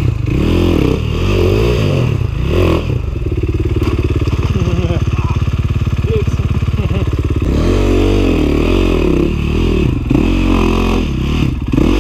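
Dirt bike engines on a steep rocky climb, revving up and down in short bursts, with a steady, even idle in the middle from about four to seven and a half seconds in.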